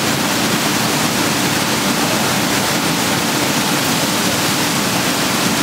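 Water churning and spraying in the tank of a stainless-steel ginger washing machine, a steady rushing noise over a constant machine hum.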